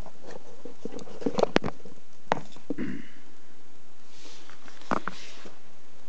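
Handling noise as a hand-held electrosmog meter is taken out of a cardboard box and set down on a wooden floor. There are several light knocks and clicks, a cluster about a second in, more at about two seconds and five seconds, and a soft rustle just before the end.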